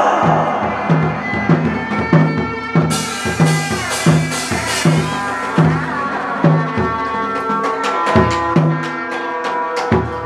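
Hát bội opera ensemble playing an instrumental passage: a drum beats a steady pulse a little under twice a second under a shrill reed wind instrument carrying the melody. Sharp clacks come faster near the end.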